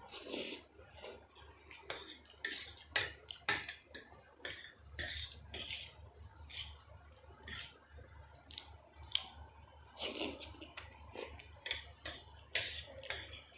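Close-miked eating of spicy instant noodles and boiled eggs: a run of short, sharp, wet mouth and utensil sounds, about one or two a second, over a faint low hum.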